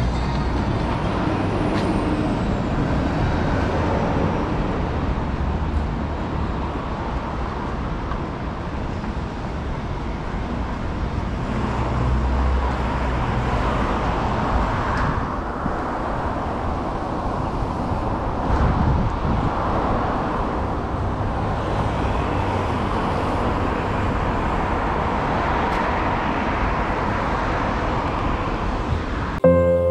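Road traffic on wet city streets: cars passing with a steady hiss and rumble of tyres and engines.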